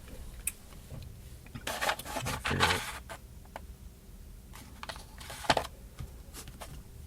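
Small parts and tools being handled on a work surface: scattered light clicks and taps, with a denser burst of rustling and clicking about two seconds in, and a sharp click about five and a half seconds in.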